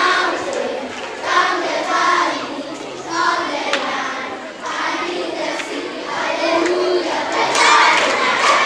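A large group of children singing together in phrases, with louder crowd noise and shouting building near the end.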